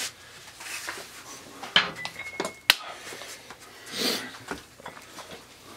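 Scattered light knocks and clinks of objects being handled, the sharpest a single click near the middle, with a brief high squeak just before it and a soft rush of noise a little later.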